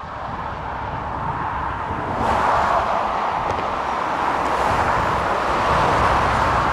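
A motor vehicle running steadily outdoors, growing louder about two seconds in.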